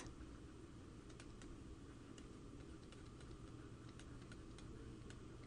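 Near silence: faint, light clicks at irregular intervals over a low steady room hum.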